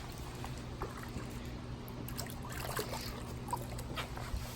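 Water trickling with small splashes and ticks, over a steady low hum.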